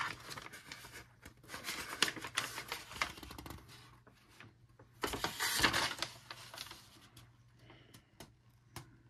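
Coloring book pages being turned by hand: paper rustling and flapping in two bouts, with a few light taps.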